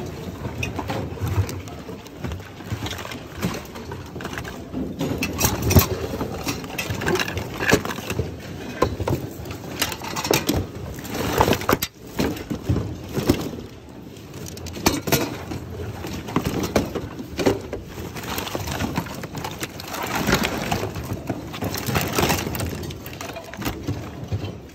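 Hands rummaging through a bin of jumbled secondhand goods: cables, plastic items and hard objects clattering, clinking and rustling in irregular knocks.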